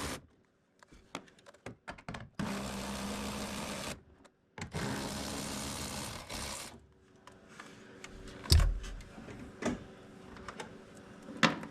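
A handheld power tool's motor whirring in bursts of a second and a half to two seconds, spinning off the 11 mm nuts that hold a 1999 Ford Mustang's tail light. After that come scattered light clicks and knocks, with one sharp knock about eight and a half seconds in.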